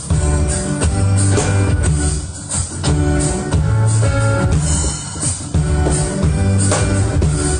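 Instrumental music with a steady drum beat over bass and chords.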